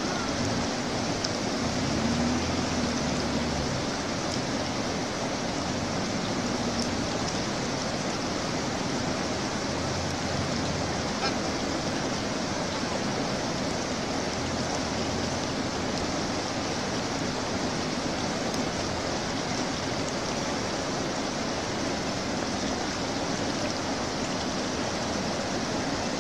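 Steady rush of a shallow mountain river flowing over big boulders.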